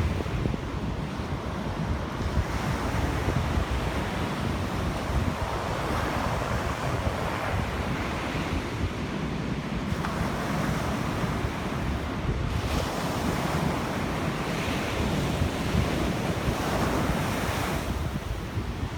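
Sea waves breaking and washing up the beach, swelling every few seconds, with wind rumbling on the microphone.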